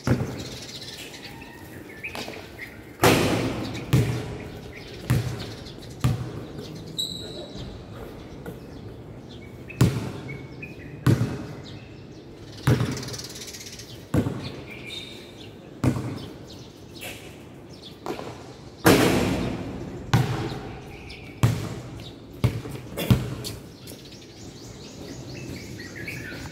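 Basketball bouncing on a concrete court, a thud about every second or so, each one echoing under the metal roof. Birds chirp faintly in the background.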